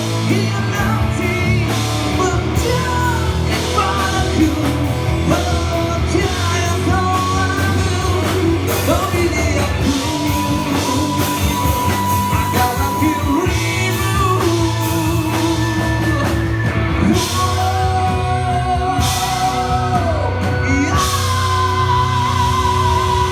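Live rock band playing a Malay slow-rock song: drums, bass and electric guitar under a bending, held melody line that ends on a long wavering note.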